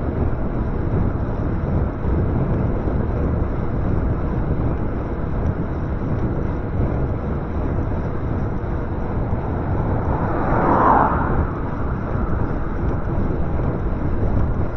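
Steady wind and road rush on the microphone of a moving e-bike. About ten seconds in, a brief swell of higher noise rises and fades.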